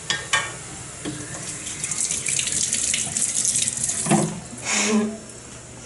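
Water running from a kitchen tap into a stainless-steel sink, a steady stream starting about two seconds in.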